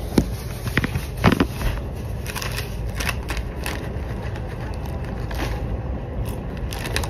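Crinkling and crackling of a plastic snack bag handled with long acrylic nails, in sharp irregular bursts, the loudest about a second in. Underneath is the steady low rumble of the moving train.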